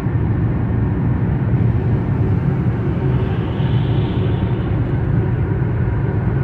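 Steady low rumble of road and engine noise inside a moving car's cabin on a wet highway. A brief hiss rises and fades about halfway through.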